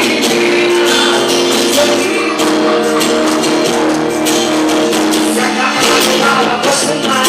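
Festa junina quadrilha music played loud and continuous: singing over a band with steady held notes and a regular percussion beat.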